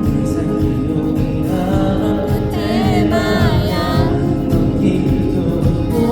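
A pop song performed live: a male singer's voice over a full backing track.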